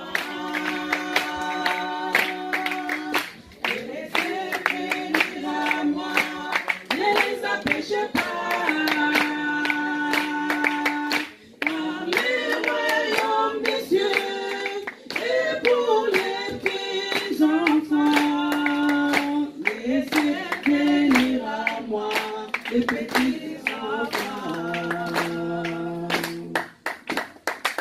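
Voices singing a French worship song of praise in long held notes, with hand-clapping keeping the beat.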